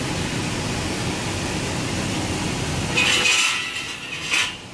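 Upright electric furnace's blower fan running with a steady rush of air. About three seconds in, a sudden loud scraping rustle, then a brief clink near the end.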